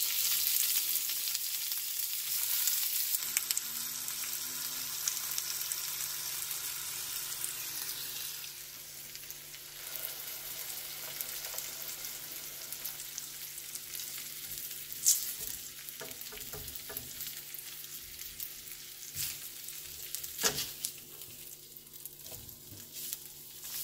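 Slices of meatloaf sizzling in hot oil on a nonstick griddle pan, loudest just as they go in and settling to a softer sizzle after several seconds. A few sharp clicks and scrapes come from a silicone spatula on the pan as the slices are turned.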